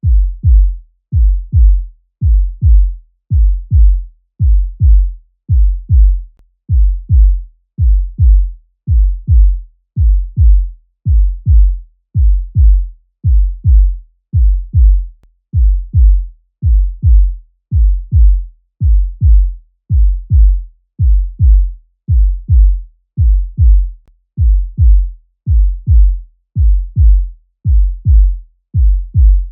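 Human heartbeat sound effect: deep paired 'lub-dub' thumps about once a second, in a steady, unchanging rhythm.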